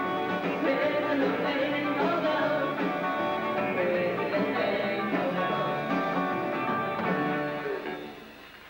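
Rock band playing live: a woman singing over electric guitars, bass guitar and a drum kit. The music dies away near the end.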